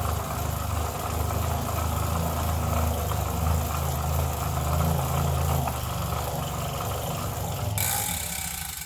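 Elite Turbo Roteo fluid bike trainer spinning under a ridden rear wheel: a steady low hum with an even hiss of the tyre on the roller. The noise has been getting louder with use, which the owner takes as a sign of impending failure, perhaps bearings coming loose.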